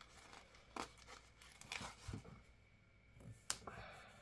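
Faint paper handling: a word sticker peeled from its backing sheet and pressed onto a journal page, soft rustles with a few light ticks, the sharpest about three and a half seconds in.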